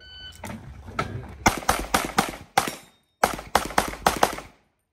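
A shot timer's short beep, then rapid fire from a .38 Super open-division race pistol: a fast string of shots, a pause of about half a second, and a second fast string.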